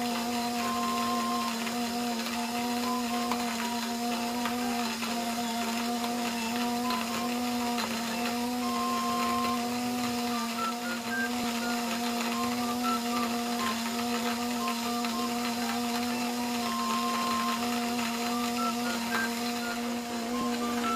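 Portable electric coffee grinder running steadily, its motor giving an even hum as it grinds beans.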